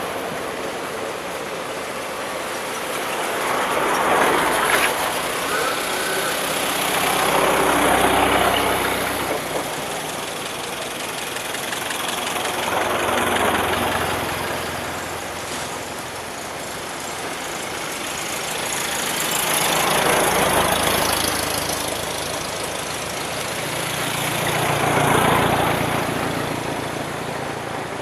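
Old cars driving past one after another: about five passes, each engine and tyre noise swelling as it approaches and fading as it goes by.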